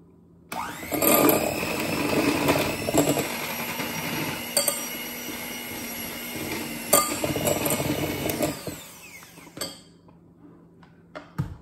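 Electric hand mixer switched on about half a second in, its motor whining up to speed and running steadily while the beaters churn butter, milk and vanilla for frosting in a glass bowl, knocking against it a couple of times. The motor winds down after about nine seconds.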